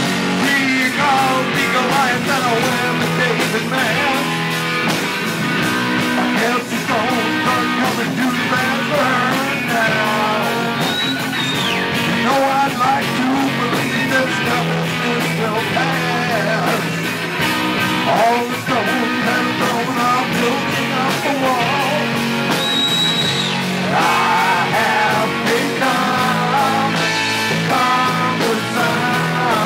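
Live rock band playing at full volume: electric guitars, bass guitar and drum kit, with a man singing lead vocals over them.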